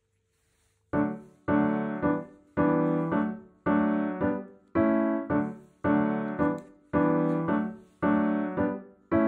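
Background music: a piano-style keyboard playing chords, starting about a second in, with a new chord struck roughly once a second and fading between strikes.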